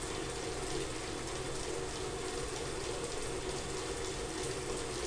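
Electric stand mixer running steadily with an even motor hum, beating margarine, sugar and eggs into a cream.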